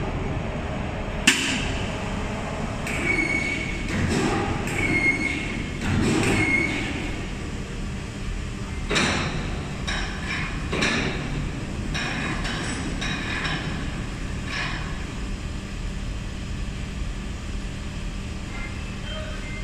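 Vertical rubber injection molding machine running in a workshop: a steady low hum, a sharp click about a second in, several short high squeals in the first seven seconds, then a series of hissing bursts.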